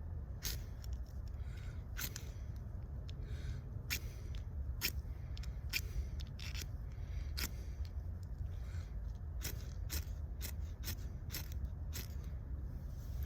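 Ferro rod of a Dragon's Breath Immortal lighter struck with its flint striker, a dozen or so sharp, irregularly spaced scrapes throwing sparks at char cloth. A steady low rumble runs underneath.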